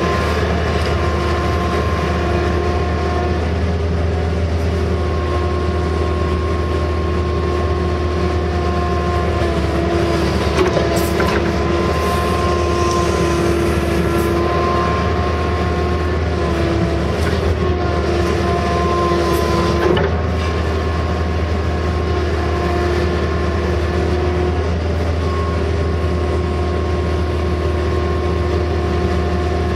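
Case CX160 excavator running under load while digging, heard from inside the cab. A steady diesel drone sits under a whine that shifts in pitch and level as the boom and bucket are worked, with a few short knocks near the middle.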